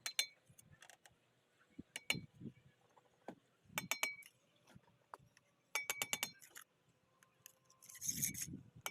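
Mason's steel trowel clinking sharply against bricks in short groups, with a quick run of taps about six seconds in, as bricks are set in mortar. A duller scraping thud comes near the end.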